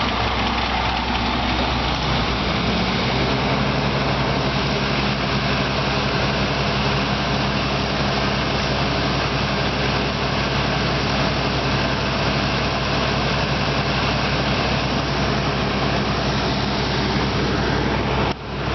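Heavy truck engine idling steadily, a low even hum over a haze of street noise.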